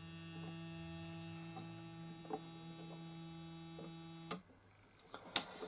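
Home-built NE555 square-wave generator playing through its LM386 amplifier and speaker: a steady low, buzzy tone. It cuts off suddenly about four seconds in as the unit is switched off, followed by a couple of faint clicks.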